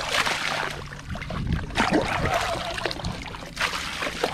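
Water gushing from the open end of a pipe into a basin of standing water, a continuous splashing pour with irregular louder splashes.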